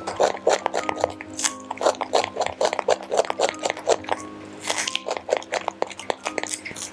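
A macaque monkey crunching and chewing a piece of raw green vegetable: many quick, crisp bites, over background music.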